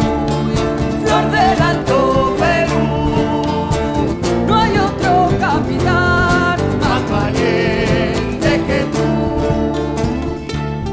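Live folk band playing an instrumental passage of an Argentine folk song between sung verses: guitars strumming under a gliding, wavering melody line.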